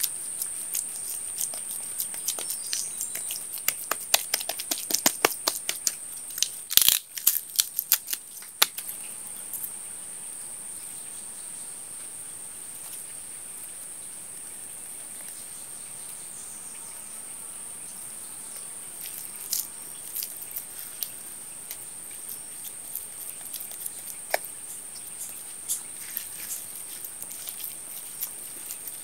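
Hands patting, slapping and pressing wet clay mud into a stove wall: a quick flurry of pats and slaps through the first several seconds, the loudest thump about seven seconds in, then only occasional pats near the end. A steady high-pitched insect drone runs underneath.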